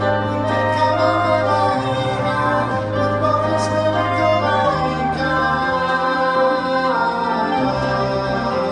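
Live chamber ensemble of cello, violins, clarinets, acoustic guitar and keyboard playing, with long held bass notes that change every second or two under the higher parts.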